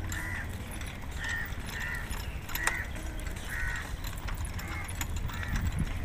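Crows cawing repeatedly, short harsh caws about once a second, over a steady low rumble.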